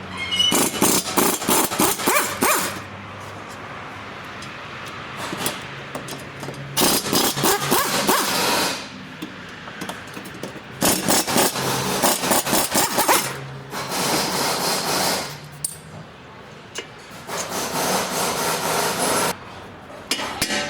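Metal tool work on a car's front wheel hub during a wheel bearing replacement: five bursts of harsh, rasping scraping, each about two seconds long, with short pauses between.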